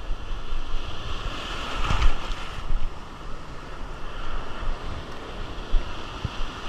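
Breaking surf washing in shallow water, with wind buffeting the microphone; a wave surges in louder about two seconds in.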